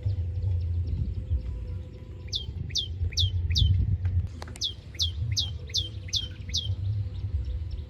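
Terik birds (oriental pratincoles) calling: a quick series of about eight sharp chirps, each sliding down in pitch, roughly two a second, starting about two seconds in. A steady low rumble runs underneath, with a single click in the middle.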